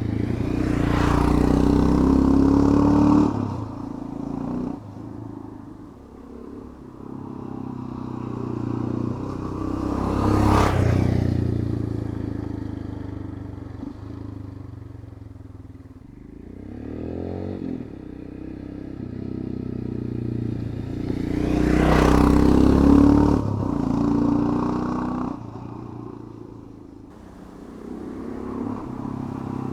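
2020 Royal Enfield Himalayan's single-cylinder engine through its standard, fairly muffled exhaust, riding past three times. The sound swells and falls away as the bike passes, with the loudest passes about 2, 10 and 22 seconds in.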